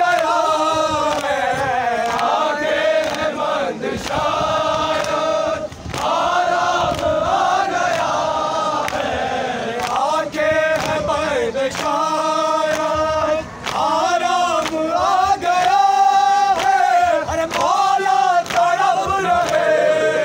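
A group of men chanting a noha, a mourning lament, in unison, in long sustained melodic lines with short breaks between phrases. Occasional short sharp knocks sound through the chant.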